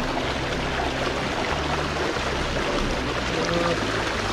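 Rain-swollen floodwater rushing steadily: a pond overflowing after days of heavy rain.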